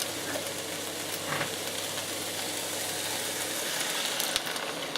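Frying pan of mushrooms sizzling steadily, with a splash of water just added to the pan.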